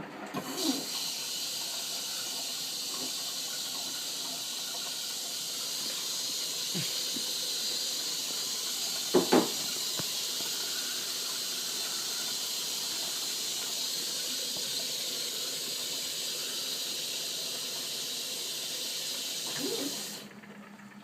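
Bendix 7128 washing machine taking in water through its inlet valve: a steady hiss of water rushing in that starts suddenly about half a second in and cuts off near the end. Two sharp knocks come about nine seconds in.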